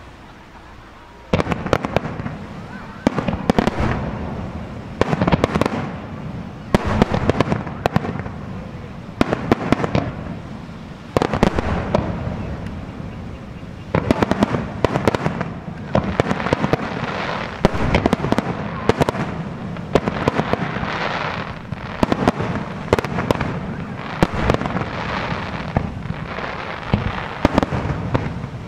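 Aerial fireworks shells bursting in quick succession, sharp bangs often several close together, with crackling between them; the barrage starts about a second in.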